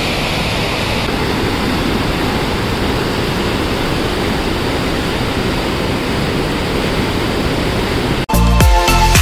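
Steady rushing of a swollen, muddy mountain river tumbling over boulders. About a second before the end, it cuts off suddenly and loud music with a beat comes in.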